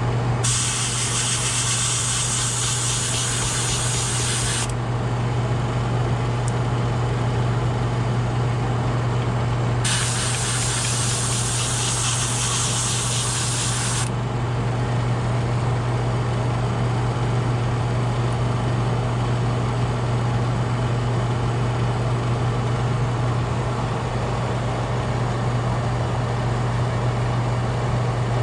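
Master airbrush spraying paint through a stencil in two bursts of about four seconds each, a hiss of air and paint, the second about ten seconds in. A steady low hum runs underneath throughout.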